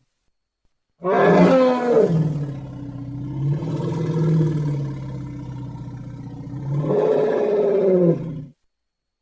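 Elephant call: a loud roar about a second in that drops in pitch into a long, low, wavering rumble, swells again near the end, and cuts off abruptly.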